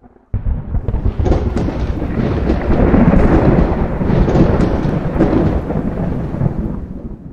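Rumbling thunder sound effect with crackles through it. It starts suddenly just after the beginning, swells in the middle and fades toward the end.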